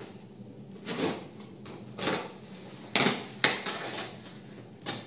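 Cardboard shipping box being opened: packing tape slit with a box cutter and the flaps pulled apart, heard as several short scraping, tearing rustles about a second apart.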